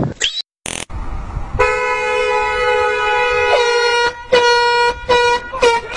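Car horn honking: one long blast of about two seconds, then a run of shorter honks coming closer together, the last ones dipping in pitch as they cut off.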